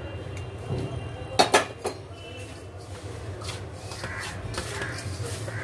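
A few sharp metallic clinks against a stainless steel bowl about a second and a half in, then the soft rubbing and scraping of hands working melted ghee into flour in the bowl.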